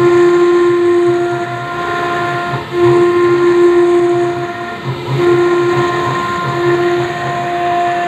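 CNC engraving machine cutting granite: the spindle gives a steady whistling whine that swells and drops away every second or two as the bit works through the stone, over a rough grinding rumble.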